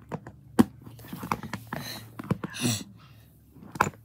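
Plastic toy animal figurines handled and set down on carpet and against a rock: a few sharp clicks and knocks with light shuffling between them.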